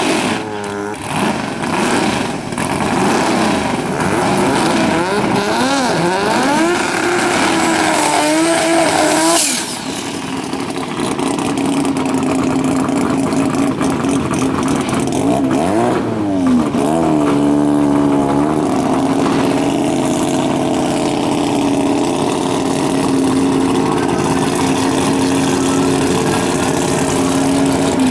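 Drag-race cars doing burnouts, a domestic piston-engined car and a rotary-engined Mazda RX2: engines revving up and down with tire smoke, then settling to a steady lumpy idle as the cars stage. A second spell of revving comes about two-thirds of the way through.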